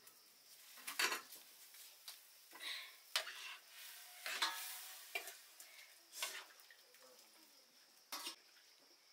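Metal ladle scraping and clinking in a black wok and against steel plates while curry is scooped out and served, in about half a dozen separate strokes with short metallic ringing.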